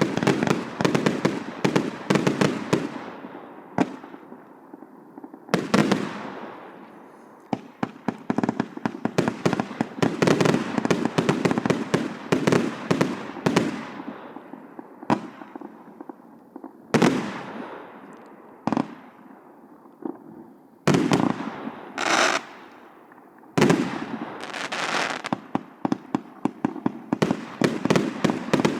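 A 140-shot compound fireworks cake with 1.0–1.2 inch tubes firing. Rapid volleys of shots are separated by short lulls in which the sound fades away, and there are several single louder bangs in the second half.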